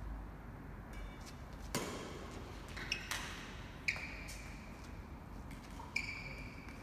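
Badminton rally: rackets strike the shuttlecock in sharp smacks every one to two seconds. Two of the hits are followed by a short high squeak, from shoes sliding on the court floor.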